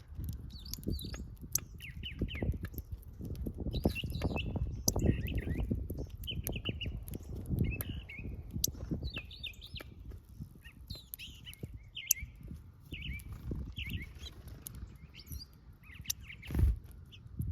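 Small backyard birds chirping in short, repeated calls, over a run of soft low knocks and thumps, with one louder thump about a second before the end.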